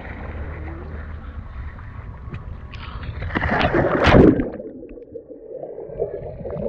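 Wind buffeting the camera's microphone, then a loud splash about three and a half seconds in as a snorkeler drops off a boat into the sea with the camera. After the splash comes muffled bubbling underwater.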